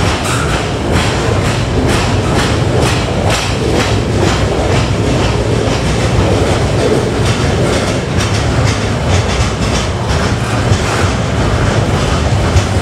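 Freight train of curtain-sided wagons rolling past: a steady rumble of wheels on rail, with a continual run of clicks as the wheels cross rail joints.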